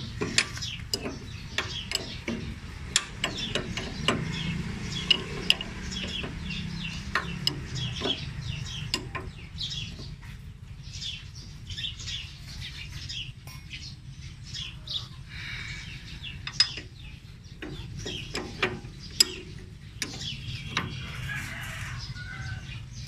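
A 17 mm combination wrench working the nuts on a reaper's cutter-blade assembly tight, giving irregular sharp metal clicks and clinks. Birds call in the background.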